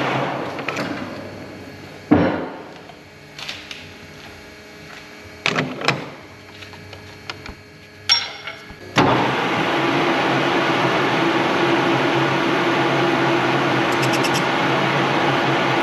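A metal-working machine tool running steadily, then spinning down over the first couple of seconds. A few sharp knocks and clinks of metal being handled follow while it is stopped. It starts up again about nine seconds in and runs steadily.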